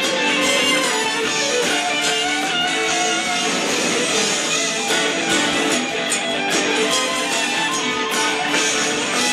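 Show music: a guitar-driven instrumental passage with strummed guitar over a full band backing.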